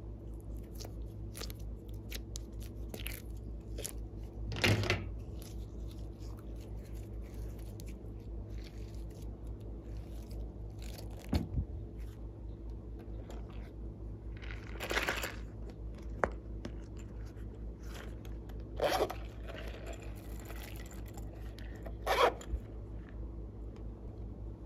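Glossy slime being squeezed and worked by hand: a run of small sticky crackles and clicks, with about five louder bursts spread through, over a steady low hum.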